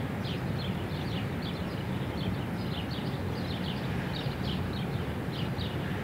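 Many small birds chirping in quick, overlapping short calls over a steady low city hum.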